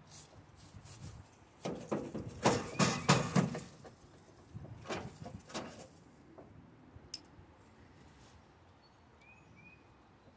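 Irregular knocks and clanks of tools and metal parts being handled, bunched in the first six seconds and loudest about three seconds in, then mostly quiet.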